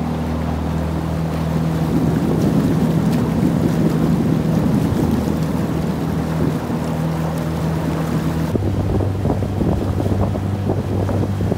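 Motor launch's outboard engine running at a steady speed, with wind buffeting the microphone and water noise. The sound changes abruptly about two-thirds of the way through, leaving a lower hum and more gusting wind.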